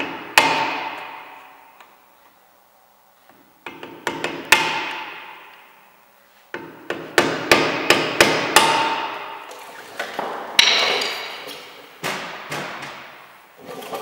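Hammer blows on a screwdriver set in a rusted brake-disc retaining screw, to break it loose. The steel brake disc rings after each blow. The blows come in groups, with a quick run of about eight strikes in the middle and single blows near the end.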